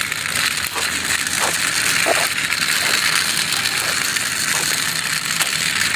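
Toy excavator's plastic gears and wheels making a steady, high ratcheting whir as it is driven along.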